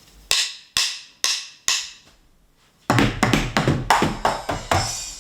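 Drums: four sharp, evenly spaced clicks about half a second apart like sticks counting in, then, about three seconds in, a quick run of drum hits with kick and toms lasting about two seconds.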